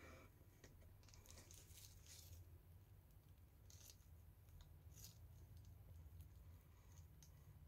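Near silence: a low steady room hum with a few faint crinkles of a plastic piping bag being squeezed as cream is piped.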